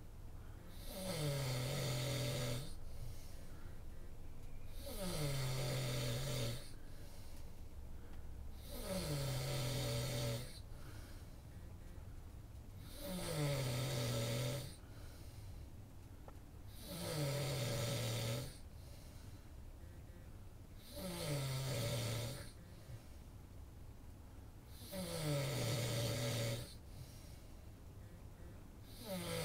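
A person snoring in slow, regular breaths, one loud snore about every four seconds, seven in all. Each snore starts with a falling pitch, then holds a low, steady rattle for a second or so, with quieter breathing between.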